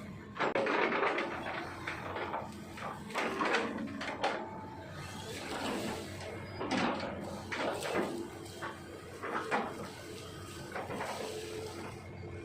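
Hitachi ZX200-5G hydraulic excavator working: a steady low engine hum under repeated irregular bursts of crunching as the bucket chops up oil palm trunks.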